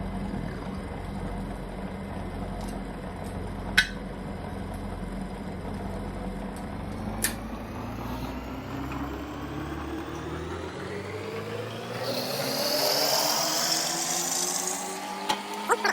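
Drill press running while a bit cuts into steel, with two sharp clicks in the first half. Its pitch rises over the second half, and a hiss of cutting comes in near the end.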